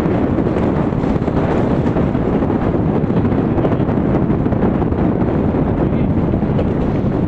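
Steady wind noise buffeting the microphone of a moving motorcycle, a loud even rush with the bike's running noise mixed in beneath it.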